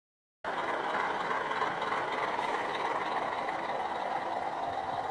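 Car engine running at a steady speed, a rough, even mechanical drone that cuts in suddenly about half a second in and holds without change.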